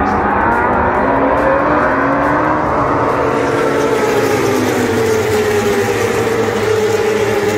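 A pack of Superbike racing motorcycles passing at speed on the track. Several engines run at high revs, their pitch lines slowly rising and falling as the bikes go by.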